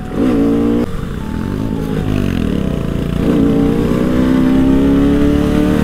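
Bajaj Pulsar RS200's single-cylinder engine revving under hard acceleration. The revs rise, cut off sharply a little under a second in at a gear change, dip and pick up again, then climb steadily through the second half.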